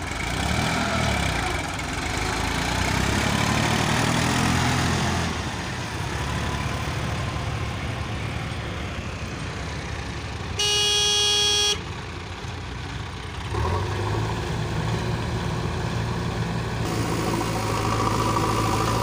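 Diesel tractor engines working hard in sand, the revs rising and falling over the first few seconds, then a steadier engine run. A vehicle horn sounds once for about a second midway, and a heavy diesel engine then runs steadily to the end.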